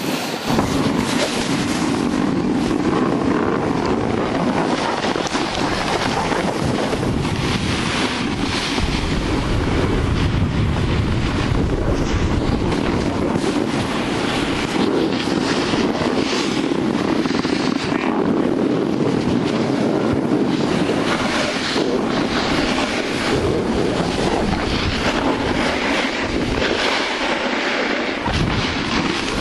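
Steady rushing wind buffeting the microphone while riding a snowboard downhill, with the board sliding and scraping over the snow.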